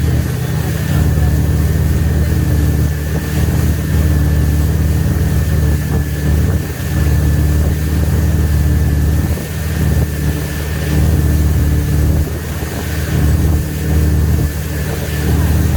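Wakesurf boat's inboard engine running steadily under way: a continuous low drone with a thin, steady high whine above it.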